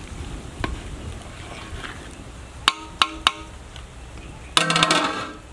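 Three quick metallic clinks with a short ring, a steel ladle tapped against the rim of an aluminium cooking pot, over a low steady rumble. Near the end, music with plucked strings starts.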